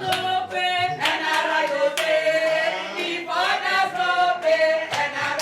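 Background music with voices singing sustained, gliding notes over a regular percussive beat.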